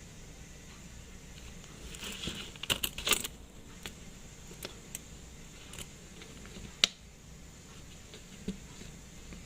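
Small metallic clicks and clinks of watch parts and tools being handled: a quick cluster about two to three seconds in, a single sharper click near seven seconds, and a few faint ticks between.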